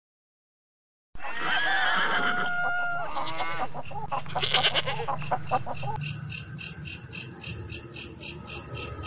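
Farm animal calls with gliding, wavering pitch, starting about a second in after dead silence. From about six seconds in, a fast, even ticking runs over a low hum.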